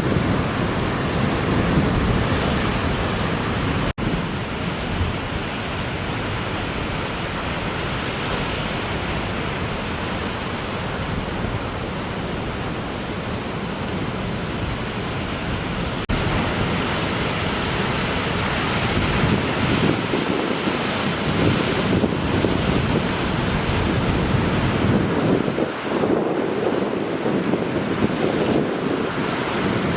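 Ocean surf breaking and washing, with wind buffeting the microphone in a steady rumbling hiss.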